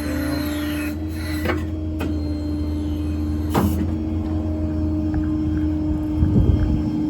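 The Ford F550's 6.7 Power Stroke diesel runs steadily under a constant whine, likely its hydraulic system. A few sharp clicks and clunks sound over it, one near the start and one a little past three and a half seconds in.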